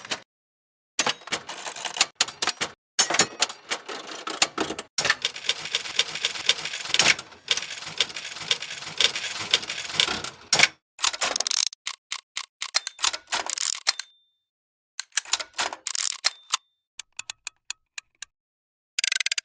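Small gear mechanisms being wound, giving fast runs of dry ratcheting clicks in several separate takes, each cut off sharply by dead silence; the longest run fills the first half and the later ones are shorter and sparser.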